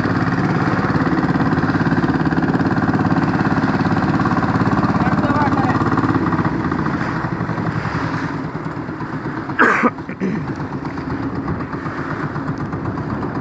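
Fishing boat's engine running steadily while the boat is under way, easing off slightly about seven seconds in. A brief loud voice cuts in near ten seconds.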